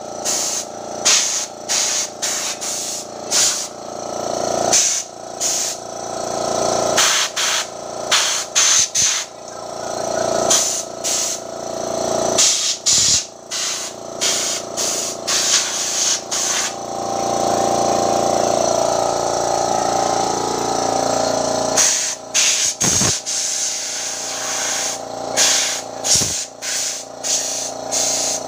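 Pressure washer spraying in many short bursts, the hissing jet cutting out and starting again every second or so, with a longer unbroken run in the middle.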